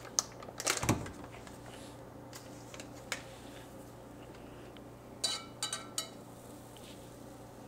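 A saucepan and utensils handled on a glass-top stove: a soft knock about a second in, then a quick run of light, ringing metallic clinks about five seconds in, over a faint steady hum.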